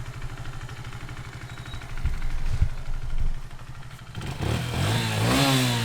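Motorcycle engine idling steadily, then revving up about four seconds in, its pitch rising as it accelerates.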